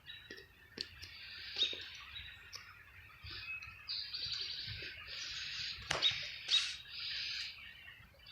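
Birds chirping in repeated high, trilling bursts of about a second each, with a sharp click about six seconds in.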